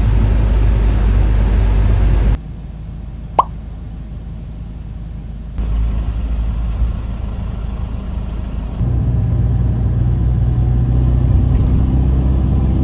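Steady low rumble in several short clips that start and stop abruptly, with one brief rising squeak about three and a half seconds in.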